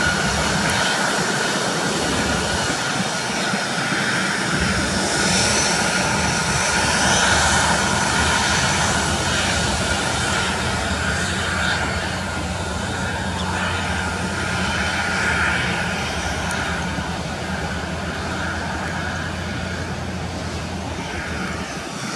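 Airbus A320's jet engines running at low taxi power: a steady whine over a broad rush, growing slowly fainter.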